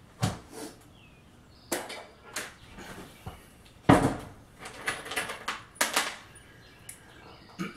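Tools and hardware being handled and set down: a string of sharp knocks, clicks and clatters, the loudest about four seconds in.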